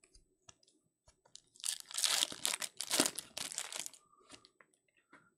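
Foil trading-card pack wrapper being torn open and peeled off the cards: a few light clicks, then a dense run of crinkling for about two seconds from about a second and a half in.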